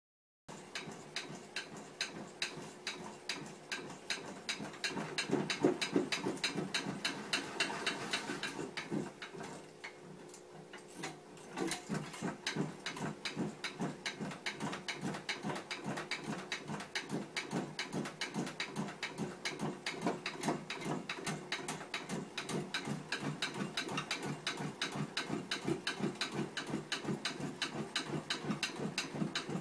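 Machine mechanism clicking in a steady rhythm, about three clicks a second, softening briefly about a third of the way in before picking up again.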